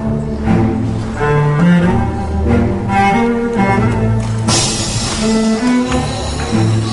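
Orchestral music led by low bowed strings, cellos and double basses, playing a melody of short held notes that step up and down; about four and a half seconds in, a bright crash-like wash joins the strings.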